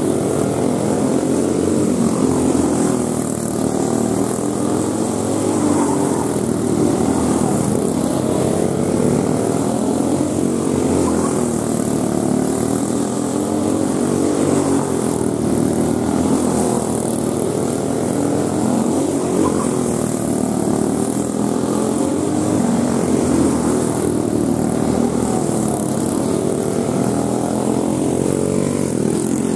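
Several 5 hp Briggs & Stratton Raptor go-kart engines running in a race, their pitch rising and falling over and over as the karts lap the oval.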